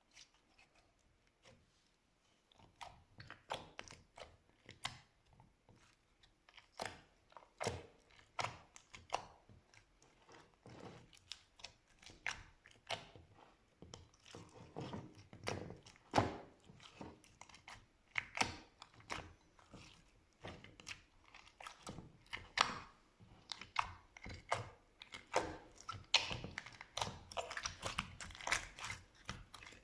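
Slime being squeezed and poked by hand, making irregular sticky pops and clicks several times a second, starting about two and a half seconds in and growing busier towards the end.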